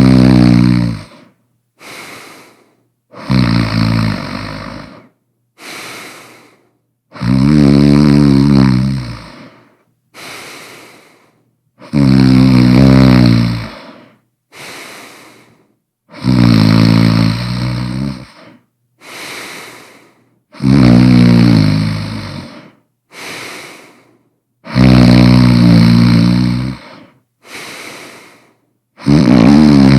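A person snoring loudly and steadily. Each drawn-in snore lasts about two seconds and comes roughly every four seconds, followed by a shorter, quieter breath out.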